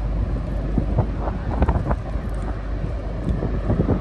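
Gusty wind buffeting the microphone, over a low steady rumble from a departing car ferry's engines.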